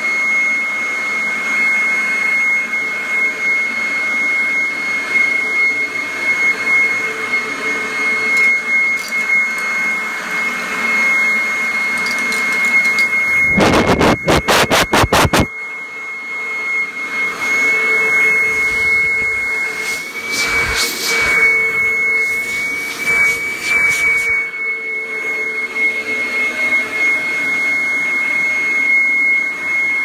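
1997 Kirby G5 upright vacuum with a metal fan, running in blower mode: a steady rush of air with a high, even whine. About halfway through comes a couple of seconds of rapid loud thumps, and softer ones follow a few seconds later.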